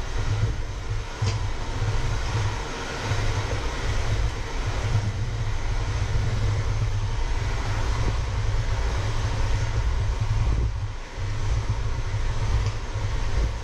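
Electric hand mixer running steadily, its beaters whisking a thick egg mixture in a stainless steel bowl, with a brief drop about eleven seconds in.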